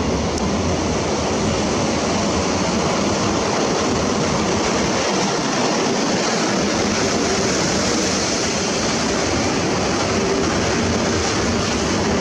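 Freight train hauled by a PKP Cargo electric locomotive, followed by open freight wagons, passing close by at speed: a steady, loud rush of wheels on the rails.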